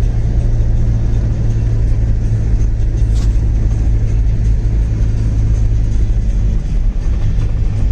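Steady low drone of a car's engine and road noise, heard from inside the moving vehicle, with a brief sharp click about three seconds in.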